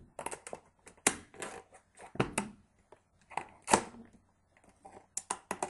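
Thin plastic 2-liter soda bottle crackling and crinkling as it is gripped and cut around with scissors. Irregular sharp crackles and snips, the loudest about a second in, about two and a half seconds in and near four seconds in.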